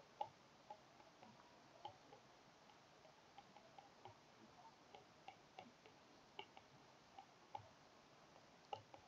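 Faint, irregular tapping and clicking of a stylus on a tablet's glass screen during handwriting, over quiet room tone.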